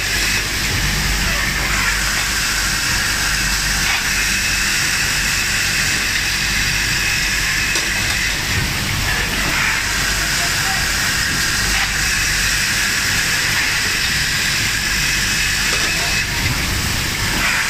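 A line of automatic edge grinding machines for melamine plates and bowls running: a steady hiss over a low hum, unchanging throughout.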